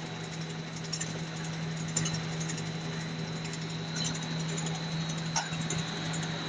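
Snack-food production line machinery running with a steady low hum and a thin high whine, with a few faint clicks.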